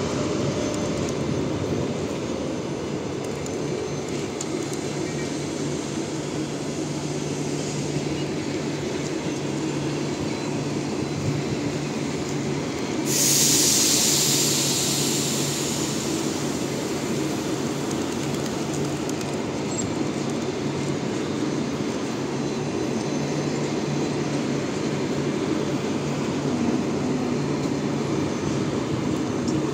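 Double-decker passenger cars rolling past, a steady rumble of wheels and bogies on the rails with a low hum. About thirteen seconds in, a sudden loud hiss sets in and fades away over several seconds.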